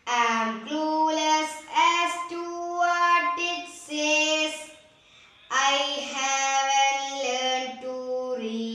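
A girl singing solo without accompaniment, in long held notes, with a brief pause about five seconds in.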